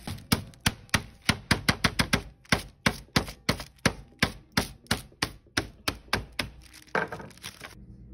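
Metal meat mallet with a textured face pounding a thin slice of raw beef flat for braciole, in quick even blows of about three a second that stop shortly before the end.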